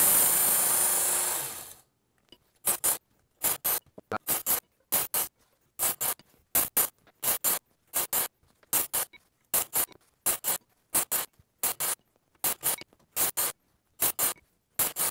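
Work Sharp Ken Onion Edition belt sharpener grinding the edge of a steel knife blade: a loud grinding pass that dies away after about two seconds, then a fast, even run of short grinding strokes in pairs, about three strokes a second. The belt runs at low speed to grind back a damaged edge.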